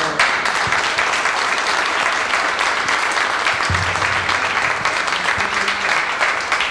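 Audience applauding, a dense, steady clapping that starts right as a speech ends.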